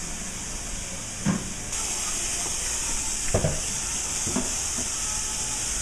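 Kitchen tap running into a sink full of dishwater, a steady hiss that grows louder under two seconds in, with a few dull knocks of dishes being handled in the sink.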